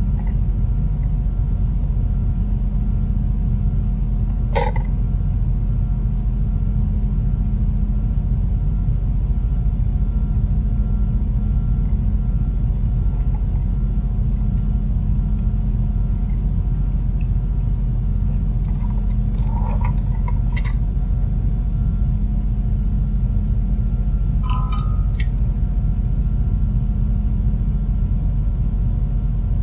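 Steady low machine hum with faint steady tones above it. A few light clicks and clinks of small electronic parts being handled sound over it, scattered and sparse.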